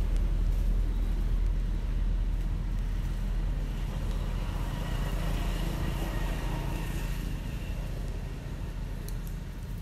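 Low rumble of a motor vehicle engine with a faint hum, slowly fading.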